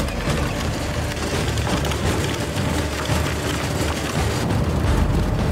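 Battery-powered ride-on toy tank rolling over gravel: its plastic wheels and tracks give a continuous crunching, rattling crackle with a low rumble.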